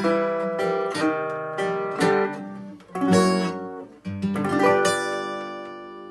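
Acoustic blues guitar playing the closing phrase of the song: a run of plucked notes, then a final chord about three-quarters of the way in that rings and slowly fades away.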